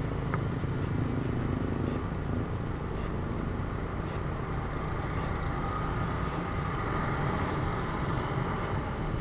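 Steady engine and road noise of a motorcycle being ridden along a road, with other scooters and motorbikes in the traffic around it.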